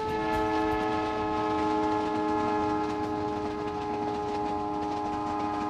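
Train horn sounding one long steady chord of several tones, starting suddenly and held, slowly fading near the end.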